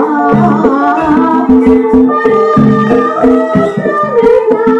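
Live Banyumasan ebeg accompaniment music: rhythmic kendang hand-drum strokes and percussion under sustained melodic lines, with amplified singing.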